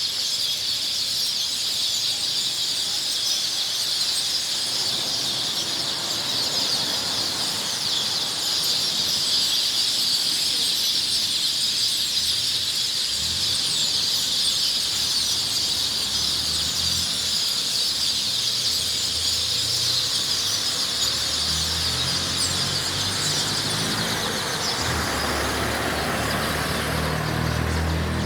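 A dense chorus of many small birds chirping together, a continuous high twittering. A low rumble comes in over the last several seconds.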